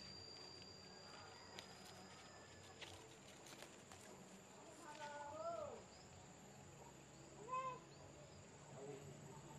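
Kitten meowing twice: a longer rising-and-falling meow about five seconds in and a short one about two seconds later, over a steady high insect drone.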